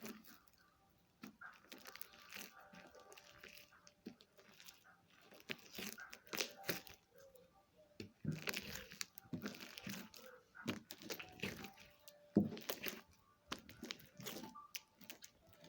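Slime being worked by hand, with irregular crackling, crinkling and squishing sounds that come and go in clusters.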